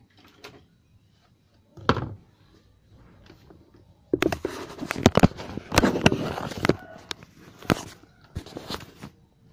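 Irregular knocks, clicks and rattling from handling a manual treadle sewing machine while its drive belt is fitted back on. A single thump comes about two seconds in, and a dense burst of clatter runs from about four to seven seconds.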